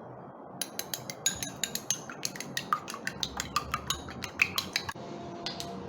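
A utensil clinking rapidly and irregularly against a dish, about five clinks a second, starting under a second in and stopping about five seconds in, over a steady low background hum.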